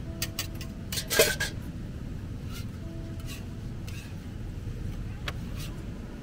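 Metal utensils clinking and scraping against a hot griddle while khanom bueang crispy crepes are made, with one sharp ringing clink about a second in and a few lighter clicks after. A steady low background rumble runs underneath.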